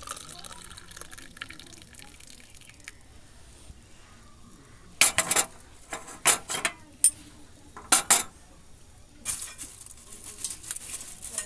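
Milk poured from a pan into a glass mug of beaten coffee, a soft pouring sound over the first few seconds. Then several sharp clinks and knocks come in quick groups from about five to eight seconds in, followed by a short stretch of hiss near the end.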